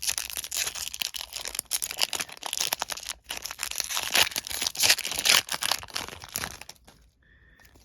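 Foil Pokémon booster pack being torn open and its wrapper crinkled: dense crackling rustle that dies away about seven seconds in.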